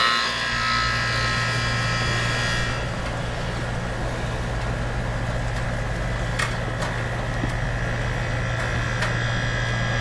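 Outdoor central air-conditioner condenser unit just started and running: a steady low hum of the compressor and condenser fan, with a higher whine that fades out about three seconds in.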